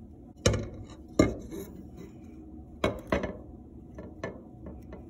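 Clay loom frame knocking and clinking against a wooden tabletop as it is handled and turned over: six or seven sharp knocks, the loudest two within the first second and a half.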